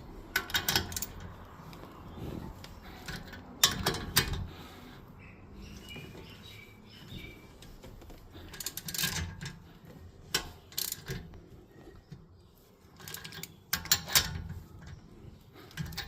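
A 19 mm wrench tightening the lug nuts that bolt a wheel spacer to the hub: bursts of sharp metallic clicks and clanks come in separate groups a few seconds apart, with quiet stretches between.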